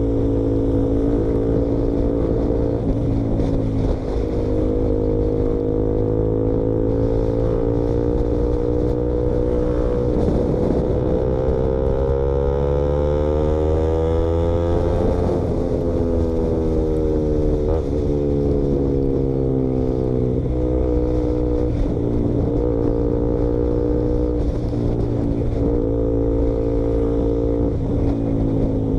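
KTM Duke motorcycle with its exhaust baffle removed, running loud under way. The engine note holds steady, climbs slowly to a peak about halfway through, drops back quickly, then holds steady again.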